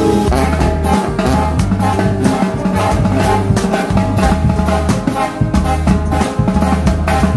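Live brass band (banda) playing a lively tune: a sousaphone bass line stepping under trumpets, with a drum kit keeping a steady beat.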